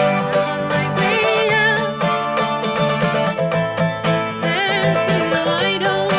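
Instrumental passage of a country-bluegrass style song: plucked strings over a steady low pulse, with a melody line that wavers with vibrato.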